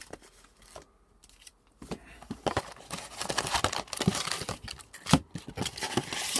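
Foil booster packs of trading cards crinkling and clattering as a stack is pulled out of a cardboard display box and set down, a quick irregular run of crinkles and taps starting about two seconds in, with one sharper tap near the end.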